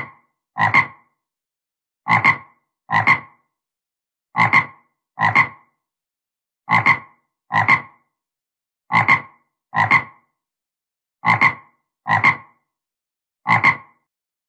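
Red-eyed tree frog calling: short croaks that come in pairs, a pair about every two seconds, six pairs and a single croak near the end.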